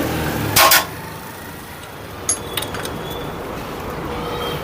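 Metal hand tools clanking on a Honda CD70 engine as a 14 mm spanner is put to the timing chain tensioner rod: one sharp knock just under a second in, then a few light metallic clinks about two and a half seconds in.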